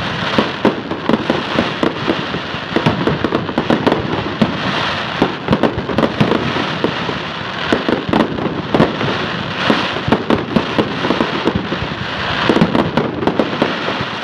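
Fireworks going off in a dense, continuous barrage: many sharp bangs a second over steady crackling.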